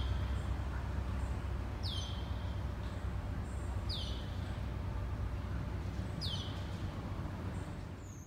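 A bird calling four times, about every two seconds: each call a quick downward slur that settles into a short held whistle, over a steady low rumble.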